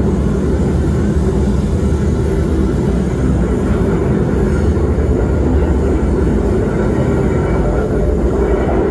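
A large steam whistle blowing one long, steady blast.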